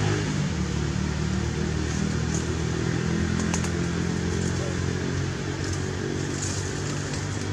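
A steady low engine hum, as of a vehicle running, with a few faint clicks.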